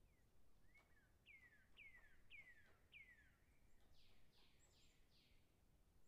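Woodpecker calling in the distance, faint: a run of about four quick falling notes, then a second, higher run of four about a second later.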